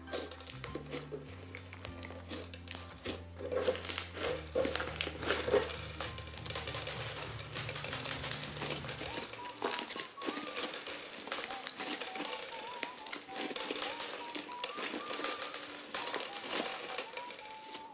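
Crunchy slime being squished and worked by hand, making dense crackling and crunching clicks, over background music.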